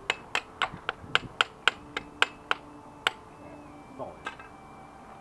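A run of about a dozen sharp clicks, roughly four a second, then a few scattered ones: a hand tool being worked on the removed engine.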